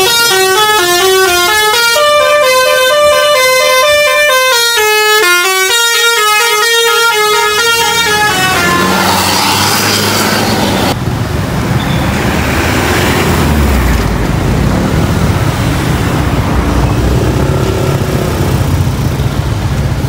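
Bus 'basuri' telolet horn playing a quick stepping melody of bright tones for about eight seconds, then it stops. After that a heavy low rumble from the coach's diesel engine as it pulls past close by, growing stronger about halfway through.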